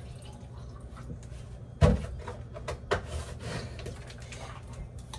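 Clicks and knocks of a plastic baby bottle being handled and put together on a kitchen counter, with one sharp, louder knock about two seconds in and a few lighter clicks after it.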